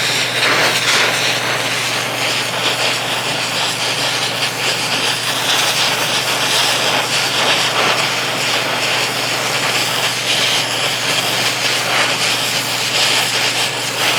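Gas torch flame hissing steadily as it is held on a seized bumper-mount nut, heating it red-hot so that the rusted nut and bolt will free up.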